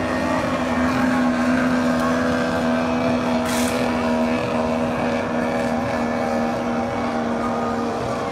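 Outboard engines of 50 hp racing tunnel-hull powerboats running flat out, a steady engine whine that holds its pitch. A brief hiss about three and a half seconds in.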